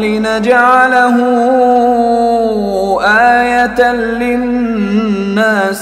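A man chanting Quran recitation in slow, melodic tajweed style, drawing out one long wavering note, then starting a new ornamented phrase about three seconds in.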